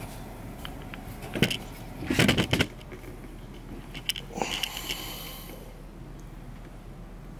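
Handling noise from a handheld camera being carried: a few knocks and scraping rustles, loudest in a cluster about two seconds in, over a steady low hum.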